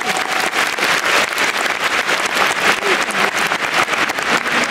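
A large crowd applauding, many hands clapping in a dense, steady patter.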